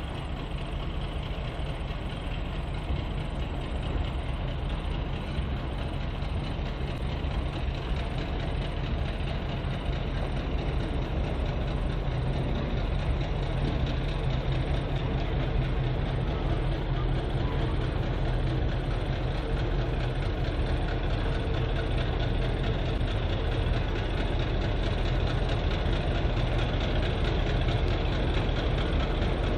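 Y-class diesel-electric locomotive's engine running steadily at low revs, a deep even rumble that grows slowly louder.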